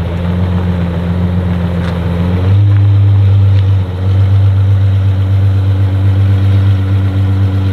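A car engine running with a steady low hum. Its note steps up slightly about two and a half seconds in.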